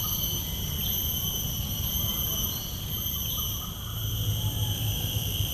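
A steady chorus of insects, a high continuous buzz with several even tones, over a low rumble.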